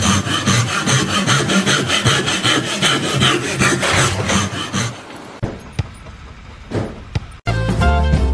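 Rapid, even scraping strokes, about four a second, for about five seconds, then quieter scattered clicks. Swing music starts near the end.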